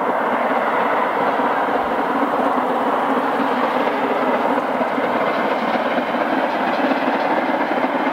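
Steam locomotive No 461, a 2-6-0, working hard as it approaches with its train: a steady, dense rush of exhaust and running noise.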